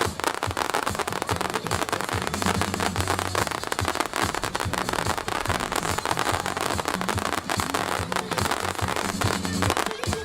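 Fireworks display going off: a dense, unbroken run of sharp pops and bangs.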